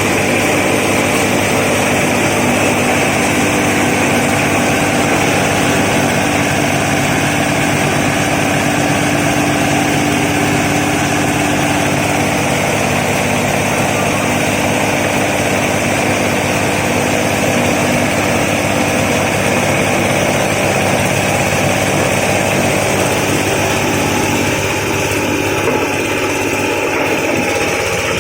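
Engine-driven feather and corn-cob grinding mill running steadily at constant speed, a loud continuous mechanical hum with a slight change in tone near the end.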